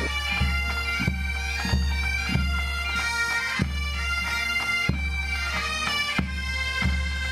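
Background music: sustained droning tones over a steady beat of about one and a half beats a second.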